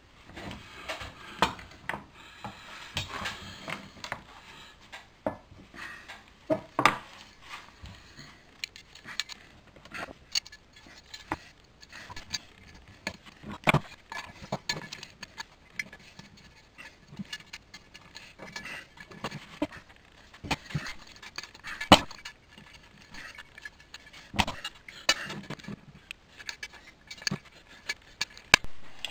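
Irregular clicks, taps and knocks of a white-painted galvanised metal plant pot, used as a lampshade, and its small fittings being handled on a wooden workbench, with a few sharper knocks among them.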